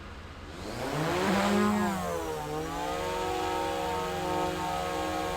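DJI Mavic 2 Pro drone's motors and low-noise Master Airscrew propellers spinning up and hovering. The whine of several tones rises about a second in, dips briefly, then holds steady.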